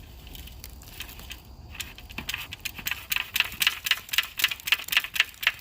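Gritty carpet debris crackling and clicking, scattered at first and turning into a dense, louder crackle about halfway through.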